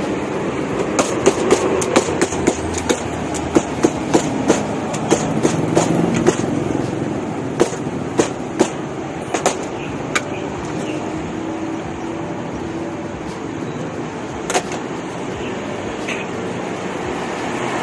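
Wooden mallet pounding skewered grilled bananas flat on a wooden board: a run of sharp knocks, about two a second, that thins out after about ten seconds, over a steady background rumble.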